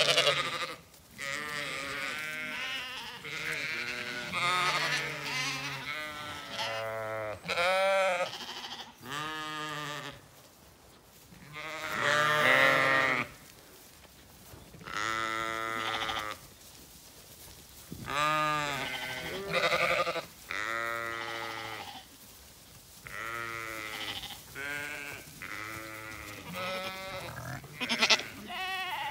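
A flock of Zwartbles sheep bleating, call after call. The bleats overlap and vary from deep to higher-pitched, with only brief lulls between them.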